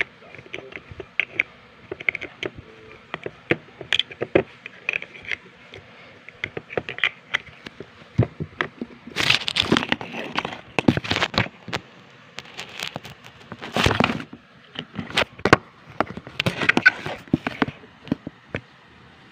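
Handling noise from a phone held in the hand: irregular taps, knocks and rubbing on the microphone, with louder rushes of rubbing about halfway through and again near the end.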